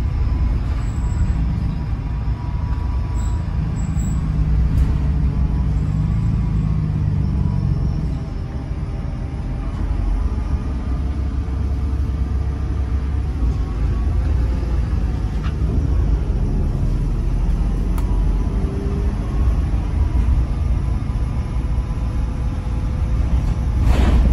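Volvo B8RLE single-deck bus heard from inside the cabin on the move: the six-cylinder diesel engine and drivetrain running with a steady low rumble under road noise, and a faint whine that shifts in pitch. A brief loud rush near the end.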